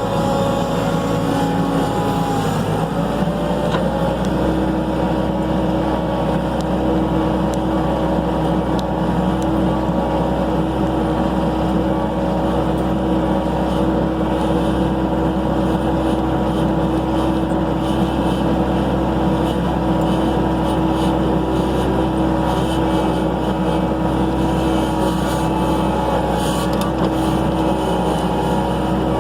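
Skid steer engine running steadily under throttle; its note shifts about three to four seconds in and then holds steady.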